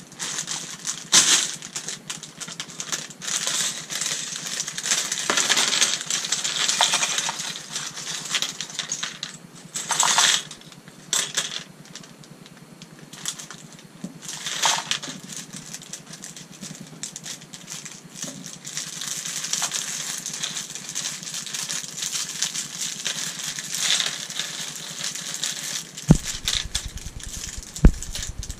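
Plastic LEGO parts bag crinkling and small plastic bricks clattering as they are tipped into a cardboard box and sifted by hand, a steady stream of small clicks and rustles.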